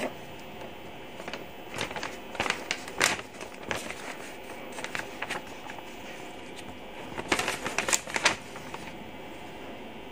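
A paper instruction leaflet rustling and crinkling as it is handled, in two spells of short rustles, about two seconds in and again near eight seconds.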